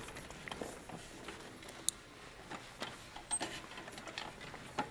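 Faint scattered clicks, light knocks and rustles of movement and handling, from a person shifting about in a wheelchair.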